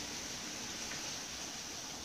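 Rain falling: a steady hiss with a few faint drop ticks.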